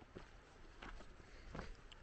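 Faint footsteps on a dirt trail, three steps at an even walking pace.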